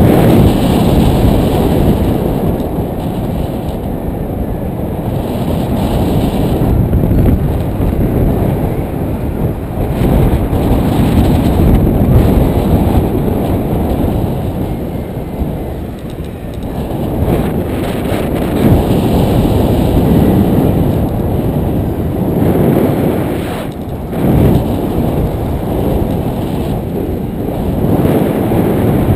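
Wind buffeting the microphone of a GoPro on a paraglider in flight: a loud, low rumble that swells and eases with the airflow.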